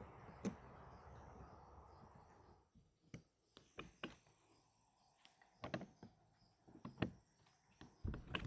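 Faint scattered clicks and knocks of hand work on shed-lock hardware, as the steel latch cable is pulled tight and a screw is tightened. A soft steady hiss stops under three seconds in.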